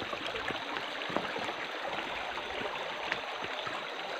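Shallow river running steadily over rocks, with a few faint clicks about a second in and three seconds in.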